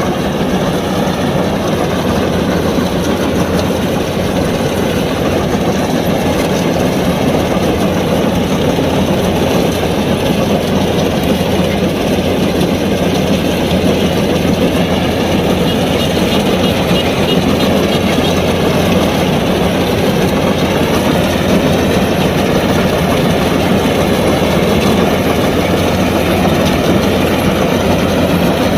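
Kubota DC-105X combine harvester running steadily at working speed while harvesting rice: a diesel engine and its machinery keep up a constant, loud drone.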